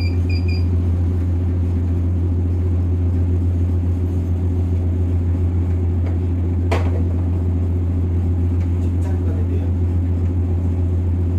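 Tugboat's diesel engines droning steadily, heard from inside the wheelhouse. A couple of short high electronic beeps sound right at the start, and a single click comes about seven seconds in.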